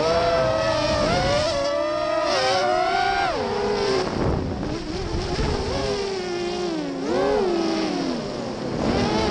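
Racing quadcopter's four Cobra 2204 2300KV brushless motors spinning Gemfan 5045 props, a loud whine whose pitch swoops up and down repeatedly as the throttle changes.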